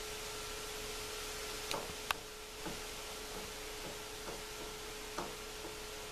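A handful of light metallic clicks and taps, the sharpest about two seconds in, as a 90-degree hydraulic fitting is turned by hand into the port of a front-lift ram, over a steady hum and hiss.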